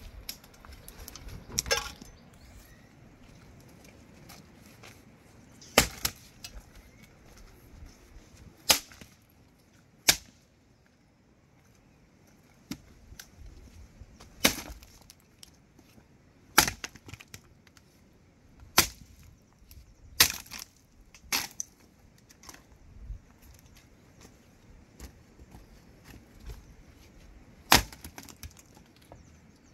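Dry branches being chopped and broken with a long-handled hand tool: about ten sharp woody chops and cracks at an uneven pace, a second to several seconds apart.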